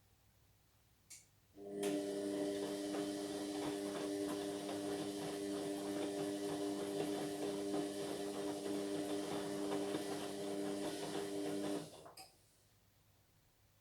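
Indesit MyTime washing machine: a click about a second in, then the machine runs with a steady hum and rush for about ten seconds before cutting off suddenly.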